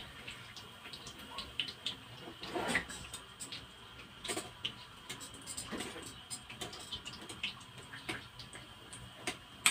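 Binangkal dough balls deep-frying in hot oil, with a faint sizzle and scattered crackles, and metal tongs clicking against the pan as the balls are turned; one sharper click near the end.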